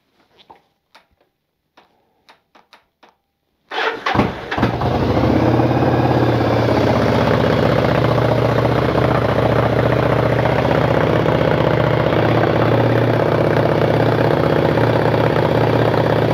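A few light clicks, then the Yamaha XVS 1100's air-cooled V-twin cranks briefly on the starter and fires about four seconds in. It is a cold start, and the engine settles into a steady idle.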